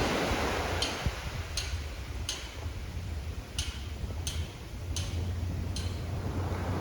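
Sea surf washing, with wind rumbling on the microphone; the wash eases off in the first couple of seconds. A sharp, high click repeats about every three quarters of a second over it.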